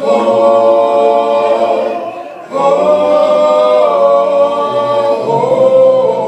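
A cappella vocal group singing long held chords, with a short breath break about two seconds in and a change of chord near the end.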